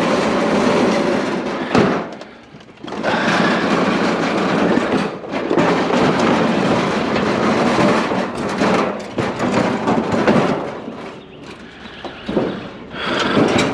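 A discarded metal barbecue grill being wrestled and loaded, rattling and scraping. The noise breaks off briefly about two seconds in and falls away again near the end.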